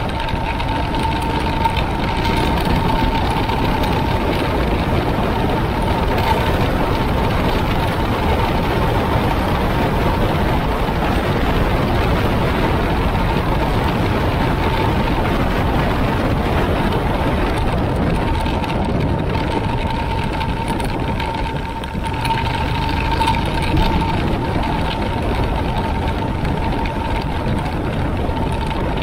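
Motorcycle riding at road speed: engine running under heavy wind rush, with a steady high whine throughout. The loudness dips briefly about three-quarters of the way through, then picks up again.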